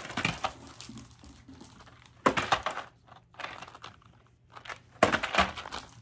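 Crinkling of plastic packaging as craft supplies are handled, in a few short bursts, the loudest starting sharply about two seconds in and again about five seconds in.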